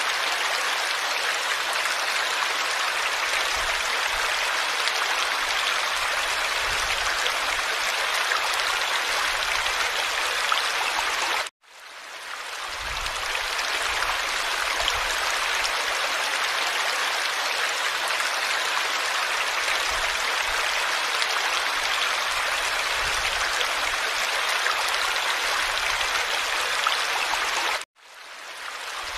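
Steady running water of a stream, an even rushing hiss. It cuts out twice, about a third of the way in and near the end, and each time fades back in over about a second, the way a looped water recording restarts.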